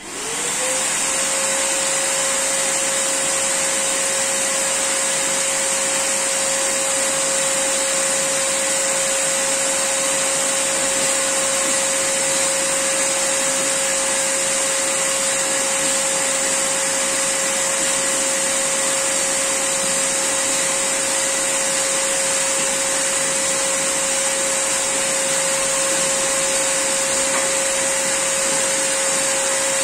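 Electric air pump switched on and inflating an inflatable boat: it spins up over the first second, then runs steadily with a constant whine and a high hiss of rushing air.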